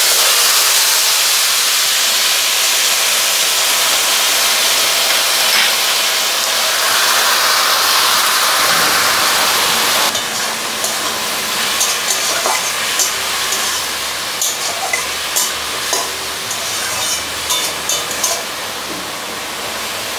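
Steamed ash gourd tipped into hot ghee and oil in an aluminium karahi: a loud, steady sizzling hiss of steam for about ten seconds. Then a quieter sizzle with the scrape and knock of a spatula stirring the gourd.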